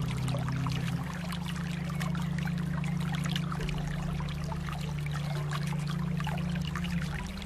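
Water flowing and trickling, with many small splashes over a steady rush. A low steady drone sits underneath and shifts in pitch shortly before the end.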